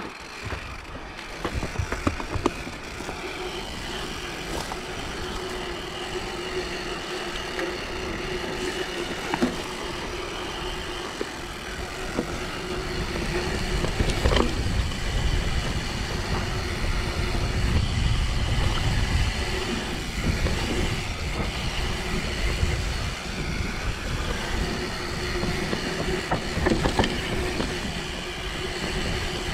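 Mountain bike ridden over a rough track: steady tyre rumble and rattling, with scattered sharp knocks, growing louder about halfway through.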